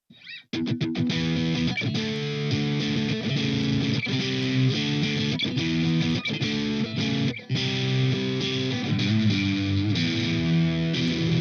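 Soloking MS-1 Classic MK.II electric guitar playing a chord riff with a distorted tone. It starts after a moment of silence with a few quick muted strums, then rings on in chords, with a brief break about seven seconds in.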